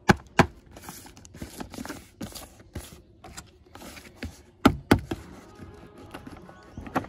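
Packaging of a boxed die-cast model being handled and opened: irregular thumps and taps with rustling in between, the loudest knocks at the start and around the middle.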